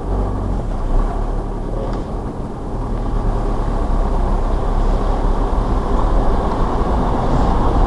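Van driving through deep floodwater, heard from inside the cab: the engine's low hum under a steady rush of water. It grows louder about two and a half seconds in.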